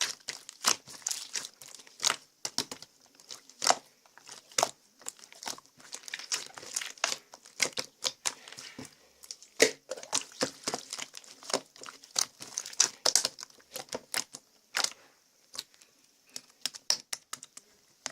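Irregular crinkling and crackling with sharp clicks, like plastic or paper being handled at close range.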